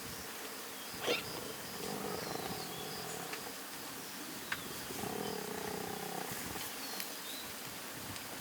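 Lions calling twice, two drawn-out calls of about a second each, with birds chirping faintly in the background.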